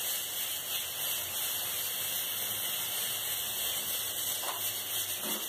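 Cooking oil sizzling with a steady hiss in a pot on a gas burner, with a couple of soft knocks near the end.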